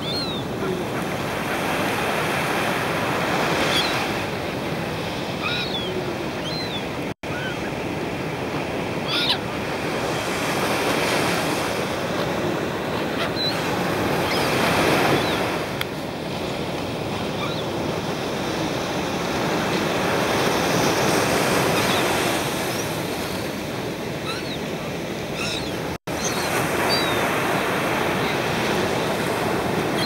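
Small waves breaking and washing on a sandy beach, a steady surf noise that swells and eases, with short calls of silver gulls scattered through it. The sound cuts out briefly twice.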